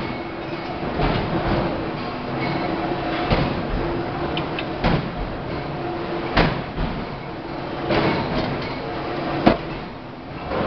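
2-ton forging hammer striking a red-hot workpiece between its dies: about six heavy blows roughly every one and a half seconds, the sharpest near the end, over the steady running drone of the machinery.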